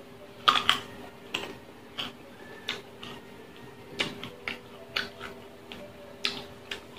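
Close-up mouth sounds of biting into and chewing raw green mango, a run of sharp, crisp crunches about every half second.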